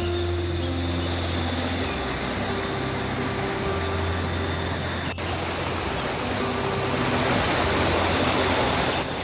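Steady rushing roar of a waterfall, growing a little louder near the end, with one sharp click about five seconds in.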